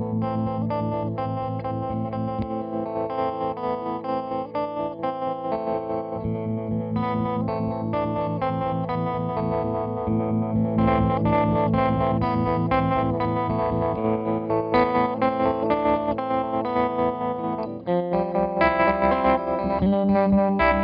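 Electric guitar played through a CopperSound Loma Prieta harmonic tremolo pedal, the notes pulsing with the tremolo, with the momentary Lo-Fi mode, which cuts the bass out of the signal, held down at times.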